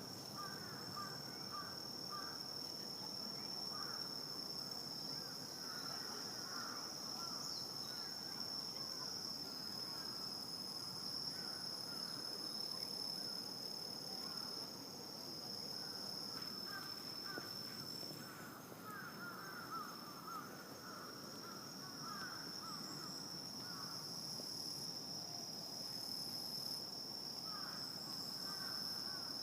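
Night insect chorus: crickets trilling in one steady high unbroken tone, with clusters of lower, rapid chirping calls that come and go.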